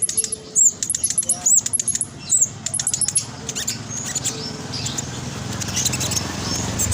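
Black sunbird singing a fast, tightly packed, high-pitched chattering song of quick squeaky notes. It is loudest in the first three seconds, then thins to fainter scattered notes over a low background hum.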